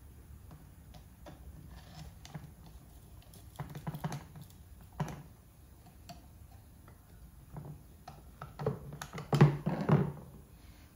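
Irregular light clicks and taps of a screwdriver and small metal parts against a two-barrel Motorcraft carburetor as the choke assembly is fitted, with a louder cluster of knocks near the end as the carburetor is handled on the bench.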